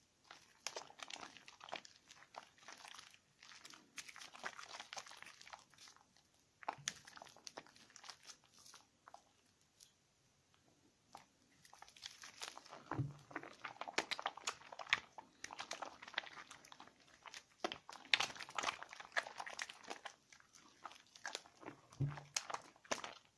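Hands lathering a bar of 72% laundry soap: irregular wet squishing and crackling of soap and foam, with scattered sharp clicks, busier in the second half. Two brief low thuds are heard, one midway and one near the end.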